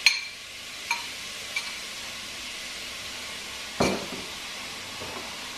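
Garlic and freshly added chopped onion sizzling steadily in olive oil in a large pot. A few light clicks come in the first couple of seconds, and a single knock comes about four seconds in.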